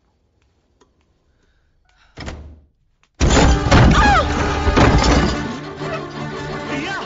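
Film sound effects and score: a short rush of noise about two seconds in, then a heavy thud about a second later as loud dramatic music bursts in, with falling swoops over it.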